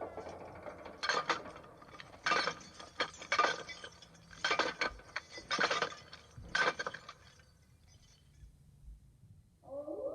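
Metallic clinking and rattling in about ten short bursts, spread over the first seven seconds and then stopping. Just before the end an eerie wavering tone begins.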